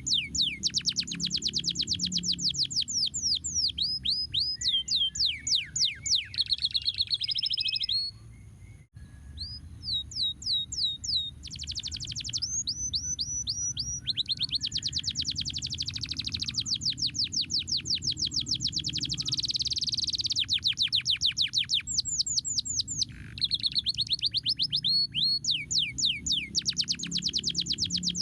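Canary singing: fast trills of rapidly repeated down-slurred notes, phrase after phrase, with a short break about eight seconds in.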